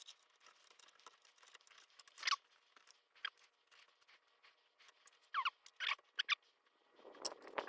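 Faint, scattered squeaks and scrapes of plastic and metal as a depinning tool works wire terminals out of a wiring-harness connector, with a longer, louder scraping rustle near the end.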